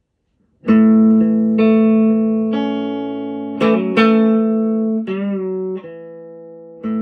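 Electric guitar, a 1966 Gibson SG Standard, played with chords and single notes starting just under a second in. There is a quick strummed flurry around four seconds and a note wavering in pitch around five seconds, then a fresh chord near the end.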